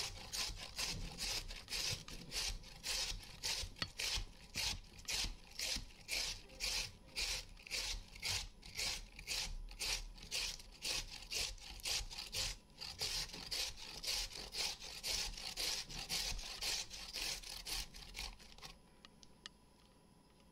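A carrot grated by hand on a metal grater, in quick even rasping strokes at about two to three a second. The strokes stop shortly before the end, when the carrot is used up.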